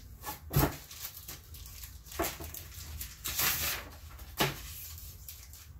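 Packing material rustling, with a few handling knocks, as a graded comic in its plastic slab is pulled from the shipping box.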